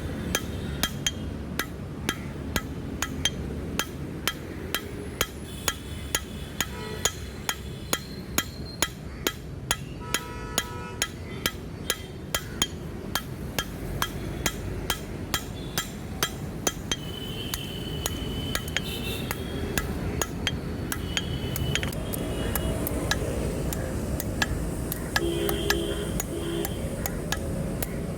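Blacksmith's hand hammer striking steel on an anvil, a steady run of blows about two a second, as a knife is forged from an old spanner.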